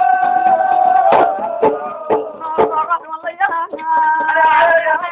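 Music of an Oggu Katha folk-ballad performance: a long held note, then four sharp percussive strikes about half a second apart, then a melody of shifting held notes.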